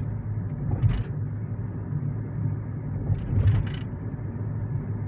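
Car interior while driving: a steady low rumble of engine and tyre noise, with a couple of brief louder noises about a second in and again about three and a half seconds in.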